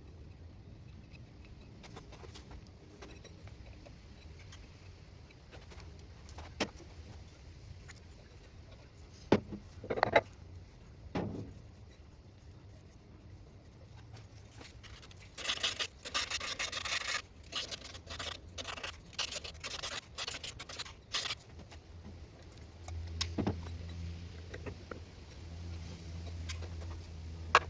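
Hand tools and metal parts being worked on a wood lathe during disassembly: a few sharp knocks, then several seconds of rubbing and scraping in the middle. A low steady hum comes in near the end.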